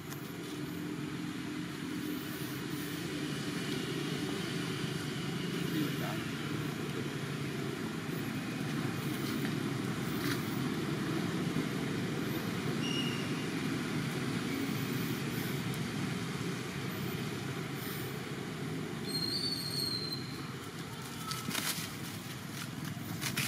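Steady low rumble of motor-vehicle traffic, swelling over the first few seconds and then holding, with a few short high chirps and clicks near the end.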